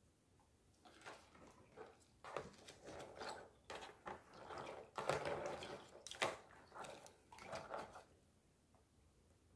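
Wooden chopsticks stirring and lifting thick kalguksu noodles in broth in a plastic container: irregular wet swishes and clicks, starting about a second in.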